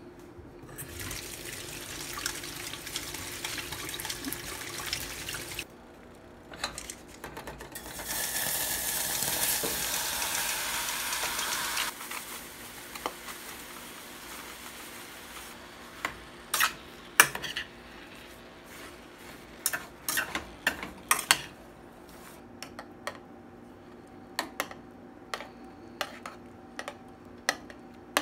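Kitchen tap running into a steel sink over chopped strawberries in a metal colander, stopping and then running again louder for a few seconds. Later a metal spoon taps and clinks against a steel saucepan as strawberries and sugar are stirred on the stove.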